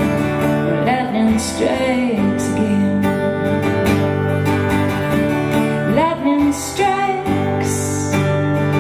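Live band music: acoustic guitar and a steady bass under a melody line that slides up and down in pitch twice.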